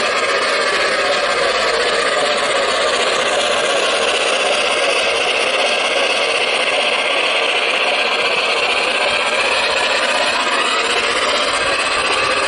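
Gauge 1 model LNER P2 locomotive running along the track, making a steady rattling run noise.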